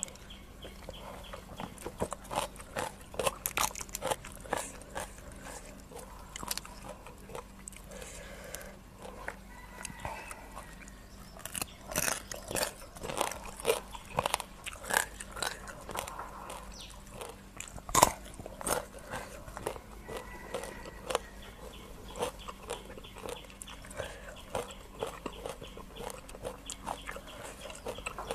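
Close-miked eating: irregular crunching and chewing of green-papaya som tam with raw rice-field crabs and fresh vegetables, with the loudest crunch about two-thirds of the way through.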